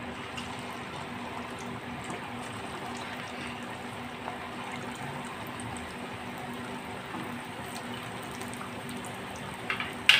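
Potato patties sizzling steadily as they shallow-fry in hot oil in a kadai. Near the end come a few sharp knocks, the last of them the loudest sound.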